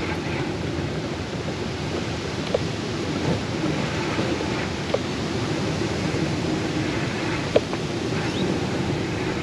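Steady rushing wind noise on the microphone, with a few faint clicks through it.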